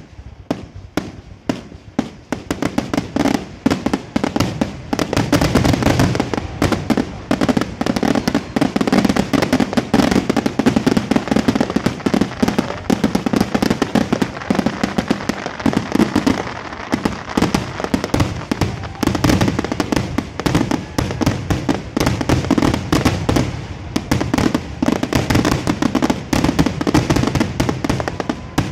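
Fireworks display: aerial shells bursting in a rapid, continuous barrage of bangs. The bangs are spaced out for the first couple of seconds, then come thick and fast for the rest.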